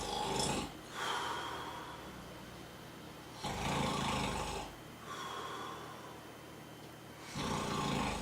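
A person snoring: three loud snores on the in-breath, about four seconds apart, each followed by a softer breath out.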